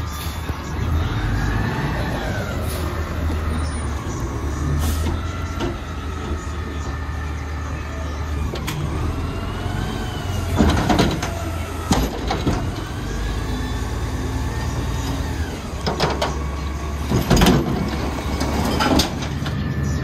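Mack LEU garbage truck's diesel engine revving up and down to drive the hydraulics as the arms lift the Curotto carry can over the cab and dump it, with a rising and falling whine of the pump. Loud metal bangs and clanks from the can and arms about halfway through, and again a few seconds before the end.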